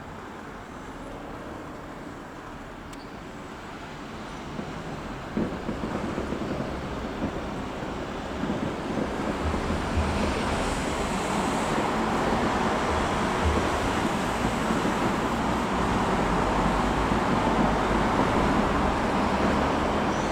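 Fireworks display: a dense wash of crackling and rumbling bursts, with a few deeper booms. It builds in loudness from about a fifth of the way in and stays dense to the end.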